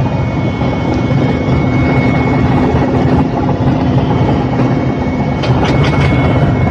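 A heavy engine running steadily with a constant low drone, with a few short crackles near the end.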